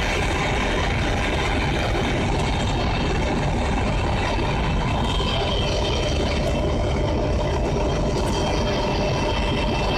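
Two SNCF BB 67400 diesel-electric locomotives coupled in multiple, heard from close by with their diesel engines running steadily. The sound is a loud low drone with a faint steady high whine over it.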